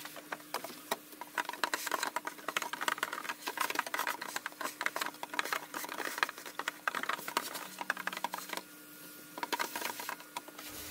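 Vacuum cleaner running with its hose in a plastic engine air filter box, a steady motor hum under dense, rapid clicking and rattling as dust and debris are sucked out.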